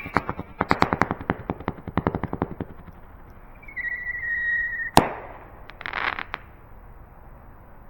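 Strobe rocket's strobe stars popping in a rapid, irregular crackle for about two seconds. Then come a brief steady whistle, one sharp bang about five seconds in, and a short burst of hiss.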